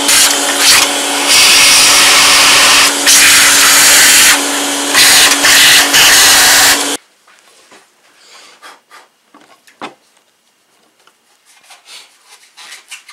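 A small electric motor runs loudly with a steady hum under a rush of air, the air noise swelling and dipping several times. It cuts off suddenly about seven seconds in, leaving faint clicks and taps of hands and parts.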